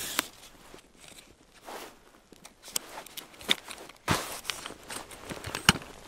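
Crunching footsteps and handling of gear on snow: a series of short rustles and sharp clicks, the loudest crunch about four seconds in.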